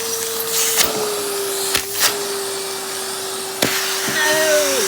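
Henry vacuum cleaner running steadily, its motor note dropping slightly about a second in as it struggles to suck in pieces of rubber glove. Sharp clicks and knocks come through several times, and a brief falling squeal sounds near the end.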